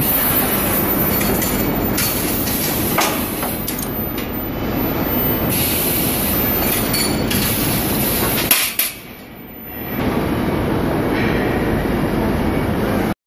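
Loud, steady clattering machinery noise from an induction bar-heating line and workshop machinery, with a few sharp knocks. The noise drops briefly about nine seconds in, comes back, and cuts off suddenly near the end.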